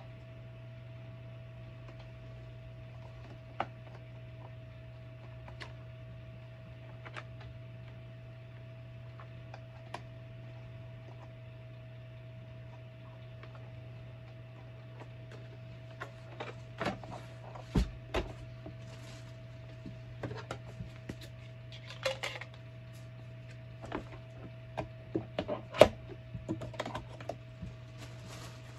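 Clicks, knocks and handling noises of a Bissell PowerForce Helix bagless upright vacuum's plastic parts being unpacked and fitted together. They are sparse at first and come thick and fast in the second half, over a steady low background hum.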